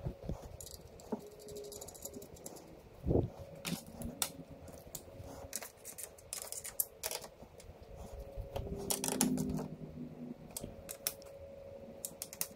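Irregular light metallic clicks and clinks of hand tools and 12 mm bolts as the bolts are refitted, with a busier run of handling noise about nine seconds in.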